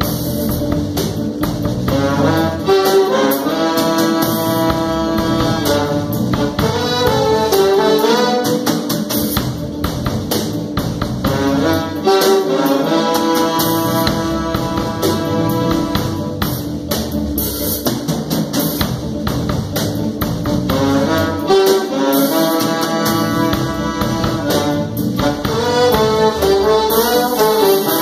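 Saxophone and trombone playing a repeated jazz-fusion horn riff together over a steady beat, the phrase coming round about every ten seconds.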